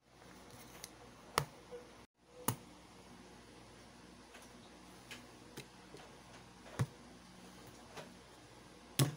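A few sharp, scattered clicks and taps over faint hiss, as small drawing supplies (pencil, gel pens, a sharpener) are handled and set down on a sketchpad. The sound drops out briefly about two seconds in.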